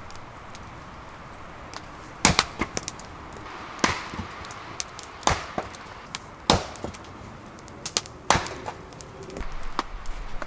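Splitting axe chopping logs on a block: five sharp chops one to two seconds apart, with lighter knocks in between.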